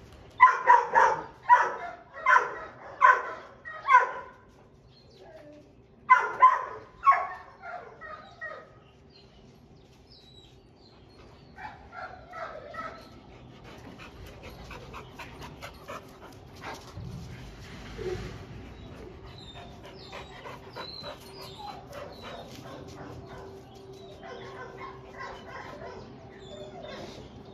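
Dog barking: a run of about seven loud barks, then three more about six seconds in, trailing off. After that come only softer scattered sounds over a faint steady hum.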